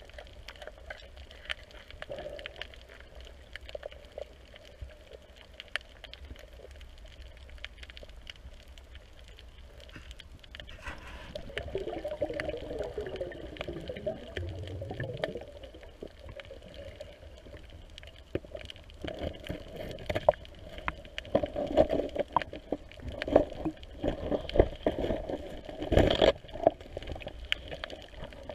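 Water noise recorded underwater from a diver's movements, with scattered faint clicks. It grows busier and louder in the last third, with repeated swishing bursts and one sharp knock.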